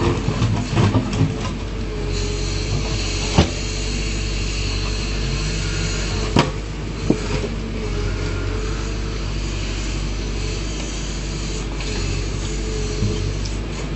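Backhoe loader's diesel engine running steadily at work, with a few sharp knocks and clanks: a cluster in the first second, then single hard knocks about three and a half, six and a half and seven seconds in.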